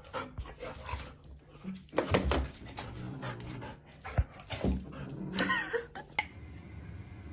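A dog whimpering, with a brief wavering whine a little over five seconds in, among scuffling and knocks; a sharp click follows.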